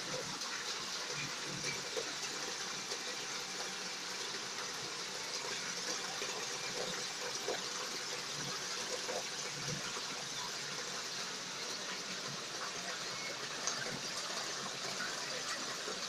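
Water falling in thin sheets from the spillways of a stepped stone waterfall and splashing into the pool below, a steady hiss.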